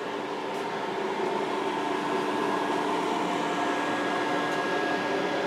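Steady electrical hum with cooling-fan whir from an off-grid solar inverter and charge controllers under a roughly one-kilowatt load, a few held tones over a noise haze, growing slightly louder as the equipment is approached.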